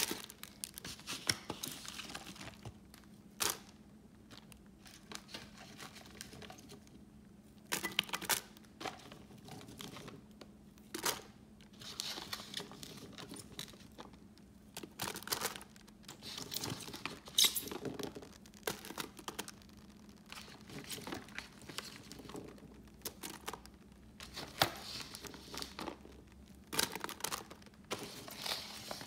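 Plastic slow-cooker liner crinkling while handfuls of chopped onion, celery and carrot are dropped into the crock pot, making irregular soft clatters and rustles. A faint steady hum sits underneath.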